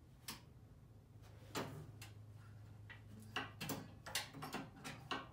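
Light clicks and taps of hands working the controls of a Toro 824 snowblower, setting the choke before a first start: about ten scattered, irregular clicks over a faint steady low hum.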